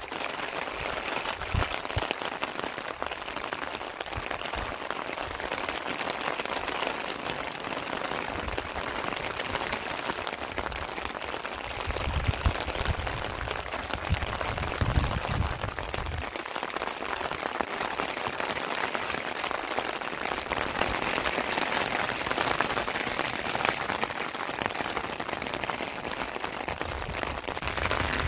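Heavy rain falling, a steady hiss that holds at an even level, with a low rumble for a few seconds near the middle.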